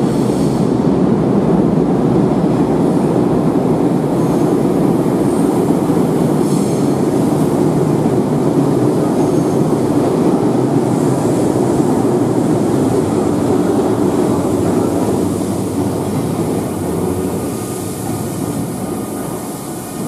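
Electric train running on the rails inside an enclosed station, a loud steady rumble that fades over the last few seconds.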